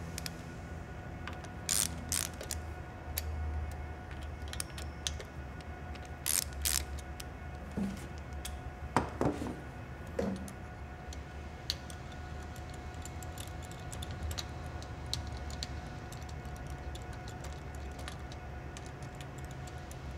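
Ratchet with an extension and T45 Torx socket clicking and clinking as the rocker-shaft bolts are backed out and lifted from the rocker stand. The metal clicks come at irregular intervals, the loudest about two, six and nine to ten seconds in, over a steady low hum.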